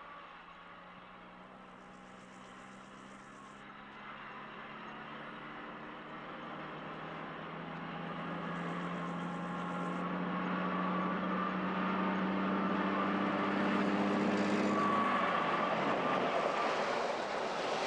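A convoy of vehicles, a lorry with a motorcycle and cars behind it, approaching on a dirt track: the steady drone of the engines grows louder throughout. About fifteen seconds in the engine tone drops away, leaving a loud even noise of the vehicles arriving.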